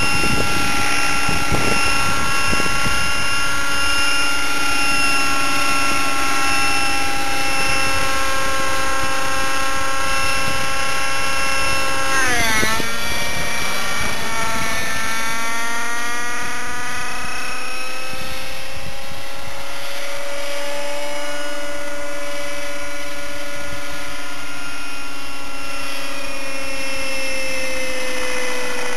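Nitro radio-controlled helicopter in flight, its O.S. 50 Hyper two-stroke glow engine with a Hatori performance muffler running at a steady high pitch. About twelve seconds in the pitch dips sharply, then climbs back over the next few seconds.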